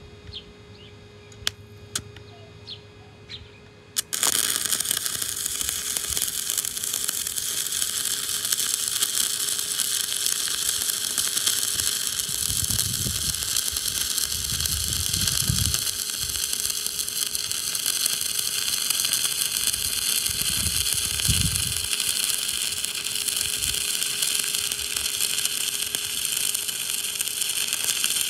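Stick-welding arc from a 7014 electrode, struck about four seconds in, then burning with a steady crackle and hiss as the rod lays a bead.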